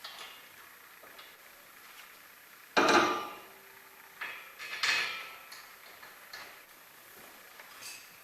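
Several sharp metallic clanks of tools being handled, the loudest a little under three seconds in, with two more close together about two seconds later and a faint one near the end.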